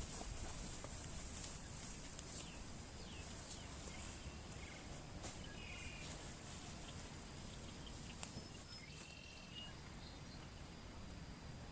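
Forest ambience: a steady high-pitched insect drone, with a few short chirping calls scattered through the middle.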